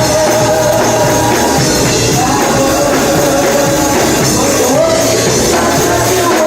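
Live gospel worship music: voices singing long held notes and gliding phrases over a full band.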